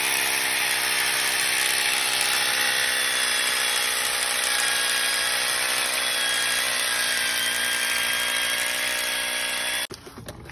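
Electric power drill boring into a concrete block with a masonry bit, running steadily with a whine over a grinding rush, then cutting off abruptly just before the end.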